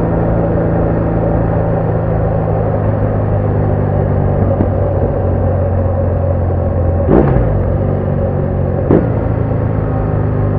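BMW R1200R boxer-twin engine running steadily at a constant note, recorded on the motorcycle while riding. Two short, sharp sounds break through about 7 and 9 seconds in.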